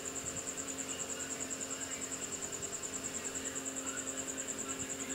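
Portable mist air cooler's small fan running at its boosted speed: a steady hum with a high-pitched whine pulsing rapidly and evenly over it.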